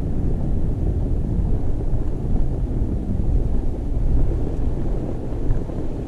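Toyota FJ Cruiser driving slowly over a snow-covered trail: a steady low rumble of vehicle and tyres mixed with wind buffeting the camera's microphone.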